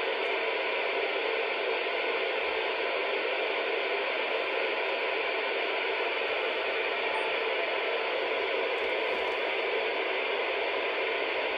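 Yaesu FT-817ND transceiver's speaker giving a steady hiss of receiver static, with the squelch open and no signal coming through.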